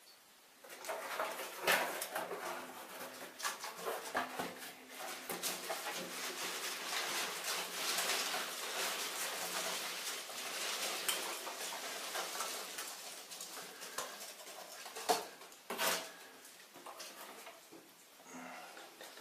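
Cardboard box flaps pulled open, then hands rummaging through foam packing peanuts: a dense rustling, squeaking clatter with many small clicks. A plastic-wrapped container is lifted out, with a couple of sharper knocks near the end.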